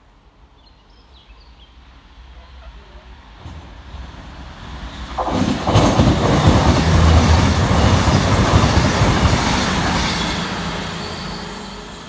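CrossCountry Class 221 Super Voyager diesel-electric multiple unit passing through at speed: the underfloor diesel engines and wheels on the rails grow louder, stay loud for several seconds, then fade away.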